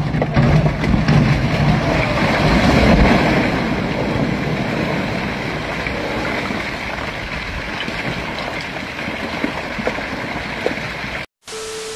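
Low rumble of a concrete retaining wall and rock slope collapsing onto a road, mixed with steady vehicle road and wind noise. The rumble is heaviest in the first few seconds, then eases to an even hiss.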